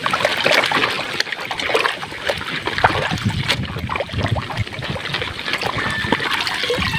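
Water splashing and sloshing as a hand scrubs mud off a plastic toy rifle in a shallow paddling pool, with many small, irregular splashes.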